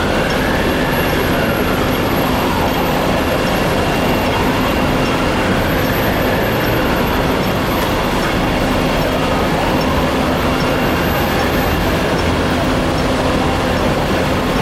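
An emergency vehicle's siren wailing slowly, rising and falling three times at about five seconds per cycle, over the loud steady din of fire engines running their pumps to feed the water jets.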